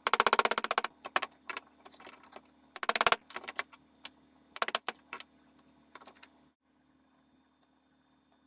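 Steel pin punch tapped with a small hammer, metal on metal, driving pins out of a Mauser 98 trigger guard: a quick run of rapid taps at the start and another about three seconds in, with single clinks of metal parts between and after.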